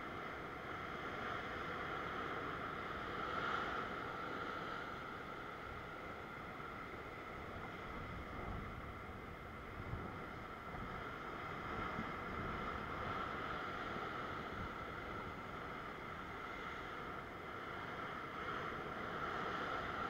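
Ocean swell surging and foaming over the rocks below, a steady rush of surf, with wind noise on the microphone.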